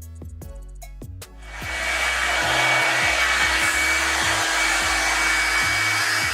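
Revlon One-Step hair dryer brush switching on about a second and a half in, then blowing steadily: a rush of air with a thin steady whine. Background music with a steady beat runs underneath throughout.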